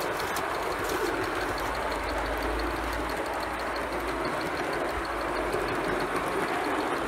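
Gauge 1 live-steam model of a J65 tank engine running with a train: a steady hiss with a fast, even ticking over it.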